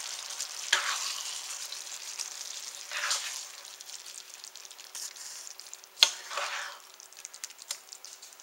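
Onion-and-mushroom gravy simmering and sizzling in a skillet while a spatula stirs and scrapes through it and the beef patties, in about three swishing strokes. A sharp knock comes about six seconds in.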